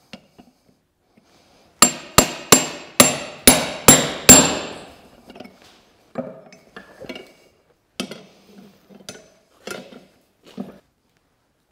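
Hand hammer striking a punch on red-hot iron bar on an anvil: seven quick ringing blows about two seconds in, then a few lighter, duller knocks.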